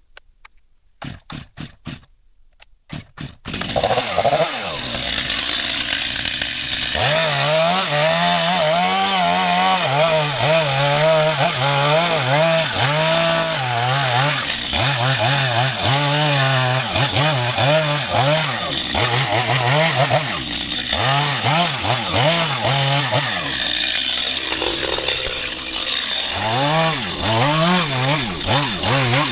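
A few clicks over near quiet, then about three and a half seconds in a Stihl MS 250 two-stroke chainsaw comes in loud. Its engine note rises and falls over and over as it revs while sawing a dead coconut tree.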